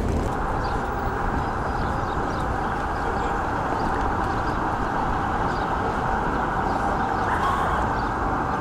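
Steady outdoor background noise: a continuous rumbling hiss with nothing standing out.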